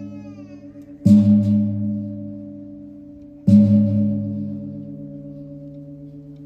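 A large gong struck twice, about two and a half seconds apart, each stroke ringing with a steady low hum that slowly dies away.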